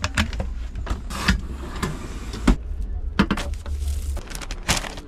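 A camper van cabinet's push-button latch clicks open, followed by a handful of sharp knocks and rustles as a woven straw mat is unfolded on a wooden tabletop. Underneath is a low, steady rumble that stops about four seconds in.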